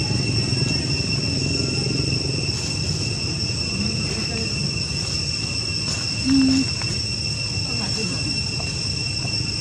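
Steady insect chorus: two even high tones hold throughout, over a low rumble. A short low tone sounds once, about six seconds in.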